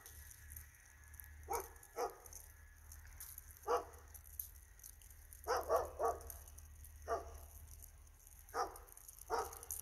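A dog barking: about nine short, faint barks at uneven intervals, with three in quick succession about five and a half seconds in.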